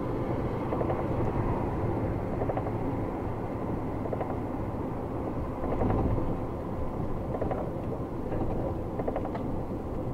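Steady running noise of a heavy goods vehicle heard from inside its cab: a low engine drone with tyre and road rumble.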